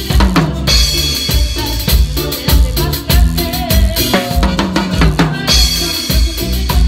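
Drum kit played live in a busy passage of Latin dance music: bass drum and snare strokes with cymbal hits, close to the kit, with the rest of the band underneath.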